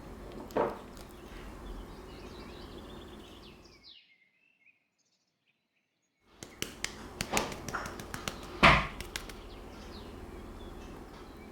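Light clicks and knocks of objects being handled over a steady background hum, with a soft thump near the start and a run of sharp clicks later, the loudest a knock about three quarters of the way in. The sound cuts out completely for about two seconds in the middle.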